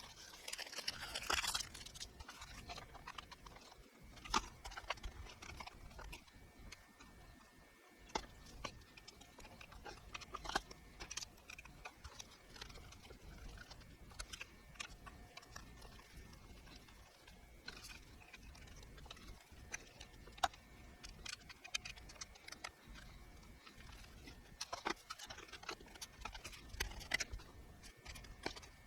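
Scattered light clicks and taps over a faint steady whine, with a brief rustle about a second in.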